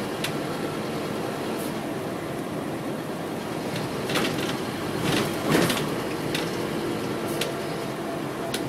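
Inside a moving Scania OmniDekka double-decker bus: steady engine and road noise, broken by brief knocks and rattles from the body and fittings. The loudest knock comes about five and a half seconds in.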